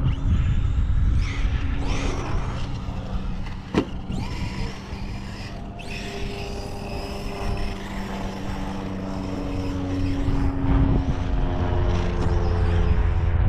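A steady motor drone with a low rumbling haze under it; the drone's pitch shifts lower about two-thirds of the way through. There is one sharp click just under four seconds in.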